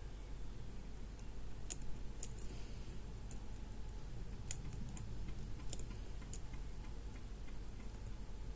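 Light, irregular metallic clicks of a lock pick working the pins of a pin-tumbler challenge lock under tension, a handful of separate clicks spread across the stretch.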